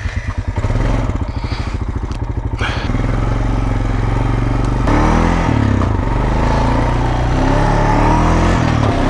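ATV engine running at a fast even idle, then from about five seconds in the quad pulls away and its engine pitch rises and dips with the throttle as it drives along a dirt trail.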